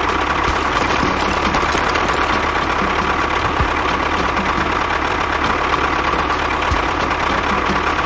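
A steady engine-like running sound with a constant high whine, unbroken throughout.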